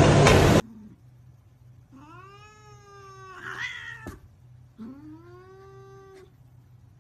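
A cat meowing twice: two long, drawn-out meows, each rising in pitch at the start and then held, with a short pause between them. A short, loud burst of noise comes before them in the first half-second.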